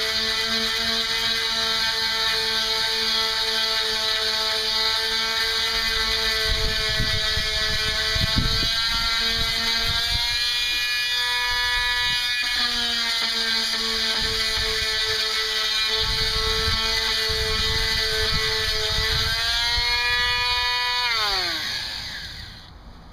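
Electric sanding tool running steadily while sanding teak wood, a high motor whine with a hiss over it. Near the end it is switched off and its pitch falls as it winds down and stops.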